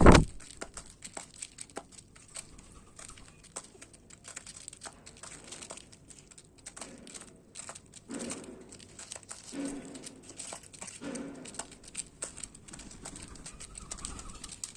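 Birds pecking and cracking seed at a feeder: a dense run of small crisp clicks and crackles, with three short low coos around the middle. A loud knock right at the start.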